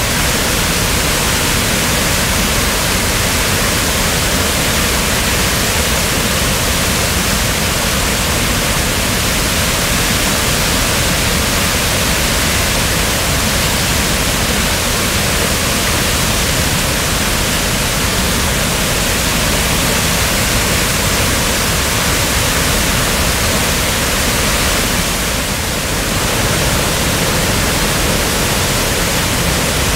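Waterfall in flood after heavy rain: a loud, steady rush of muddy floodwater pouring over the full width of the falls and crashing into churning water below.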